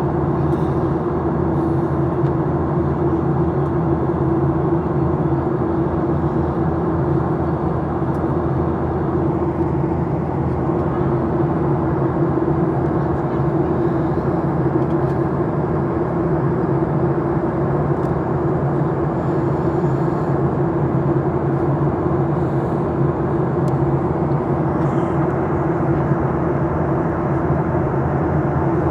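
Steady cabin noise inside a Boeing 737-800: the drone of its CFM56 jet engines and rushing air, with a steady hum over it, unchanging throughout.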